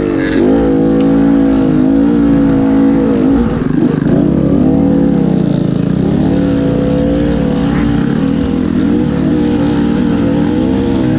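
Dirt bike engine being ridden hard, its pitch rising and falling repeatedly as the throttle is opened and rolled off.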